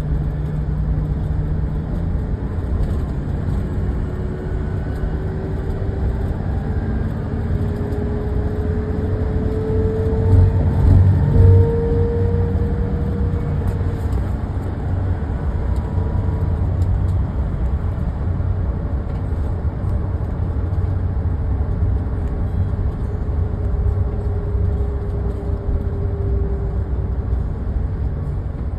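Car driving, heard from inside the cabin: a steady low rumble of engine and road noise, with faint engine tones slowly rising and falling. The rumble grows louder for a couple of seconds about ten seconds in.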